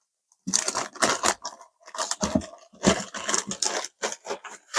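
Plastic bag crinkling and rustling as it is pulled open and its contents are handled, in irregular bursts with a few dull knocks among them.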